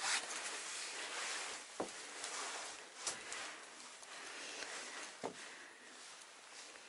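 A person moving about: quiet rustling with about four scattered short knocks.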